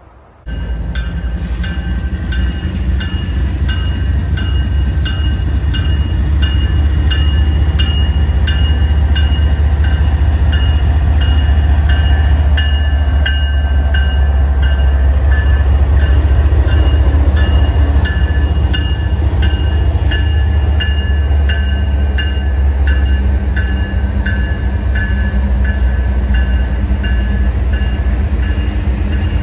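Freight train rumbling past close by, a heavy steady low rumble that grows louder over the first fifteen seconds. Over it, a grade crossing bell rings steadily, about two dings a second.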